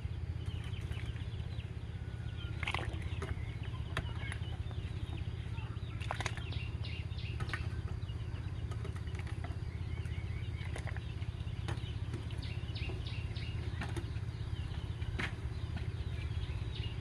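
Large pot of water at a rolling boil over a wood fire: a steady low rumble, with scattered small clicks and faint chirps.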